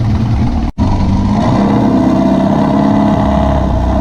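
VW beach buggy's engine running on the road, climbing in pitch as the car accelerates, then holding steady. The sound cuts out for an instant just under a second in.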